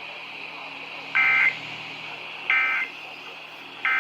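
Three short bursts of emergency-alert (SAME) digital data tones from a weather radio broadcast, each about a third of a second long and a little over a second apart, over a steady background hiss. Bursts this short are the end-of-message code that closes an alert.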